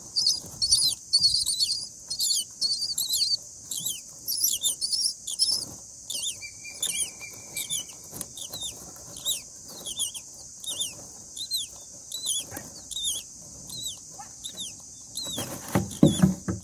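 Common myna nestlings begging: a rapid run of shrill, downward-slurred squeaks, several a second, over a steady high hiss, as the adult feeds them. Near the end a short fluttering thump as the adult leaves the nest.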